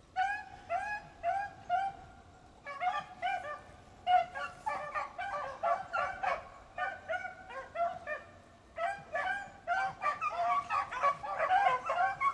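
Beagles baying while running a rabbit: short, rising-and-falling cries about two a second from one hound at first, then several hounds overlapping from about three seconds in.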